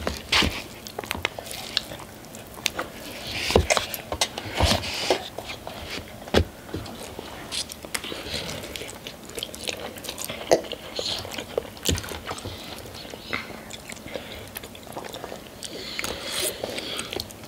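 Close-up eating sounds: ramen noodles slurped, chewing and biting, and scattered sharp clicks of forks against the noodle cups, with the loudest slurps a few seconds in and near the end.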